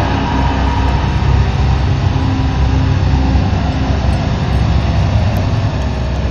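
Live electronic performance music: a loud, dense, dark drone with a heavy low rumble, part of a sound score whose instruments are partly driven by sensors on the calligrapher's movements.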